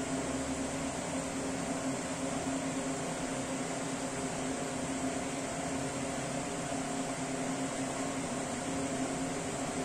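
A steady mechanical hum with a low drone and an even hiss, unchanging throughout.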